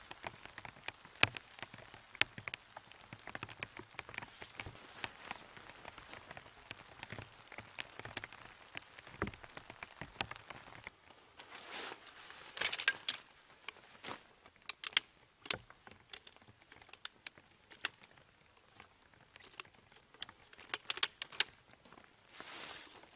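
Light rain pattering steadily, with sharper clicks and rustles from about halfway, as a folding camp chair's pole frame is pulled from its nylon stuff sack; a cluster of louder clicks comes near the end.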